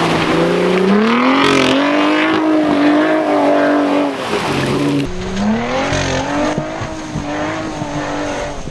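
A motor vehicle engine revving up and holding at high revs. After an abrupt change about five seconds in, an engine revs up again and holds.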